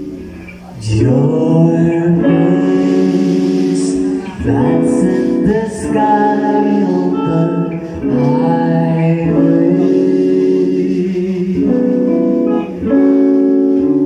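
Small rock band playing live: male lead vocals over electric bass, guitar and drum kit. A held chord fades, and about a second in the band comes back in under the sung verse.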